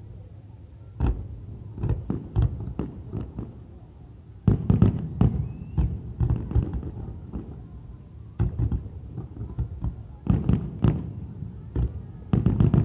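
Aerial firework shells bursting: sharp bangs and crackles over a low rumble. They come in clusters, about a second in, densest around five seconds in, then again near ten seconds and at the end.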